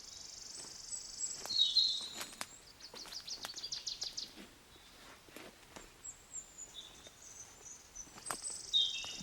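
Birdsong outdoors. A high buzzing phrase about two seconds long ends in a short chirp, then comes a quick trill of about ten notes, and the buzzing phrase returns near the end. Scattered light clicks and knocks run underneath.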